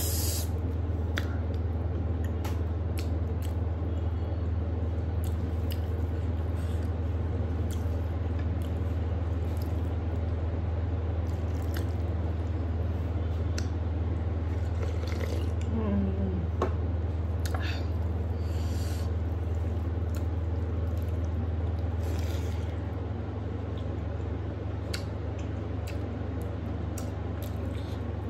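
Close-up eating sounds: fingers mixing and squishing rice and curry on a metal plate, with chewing and scattered soft mouth clicks over a steady low hum. Around the middle comes a sip from a bowl with a short gulping sound. The hum gets quieter about three-quarters of the way through.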